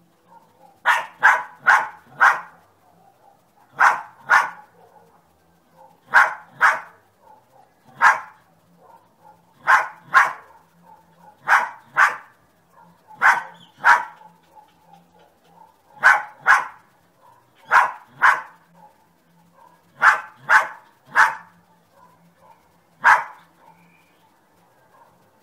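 Dog barking repeatedly: short, sharp barks, mostly in pairs and sometimes in threes or fours, every two seconds or so in a steady, unbroken rhythm.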